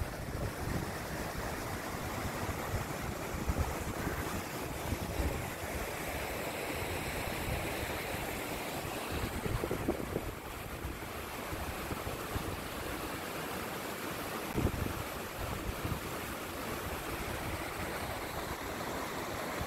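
Mountain stream rushing over boulders, a steady wash of water, with wind buffeting the microphone now and then.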